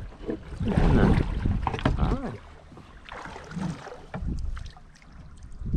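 River water slapping and rippling against a drift boat's hull as it floats, with wind on the microphone. A voice is heard briefly in the first two seconds, and there are a few sharp knocks near the end.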